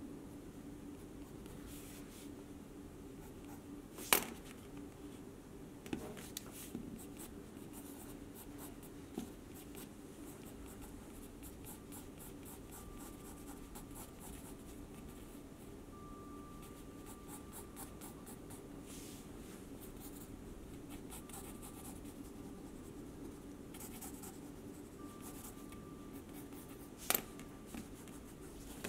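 Pencil lead scratching on sketchbook paper in short, irregular drawing strokes, with two sharp knocks, one about four seconds in and one near the end. An eraser rubs the paper right at the end.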